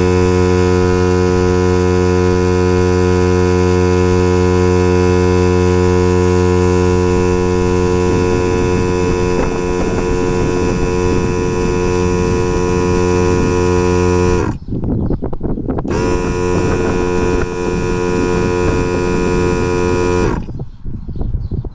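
NOCO Boost+Air AX65 portable air compressor running with a steady hum while inflating a car tire. It stops briefly about two-thirds of the way through, starts again, then shuts off near the end.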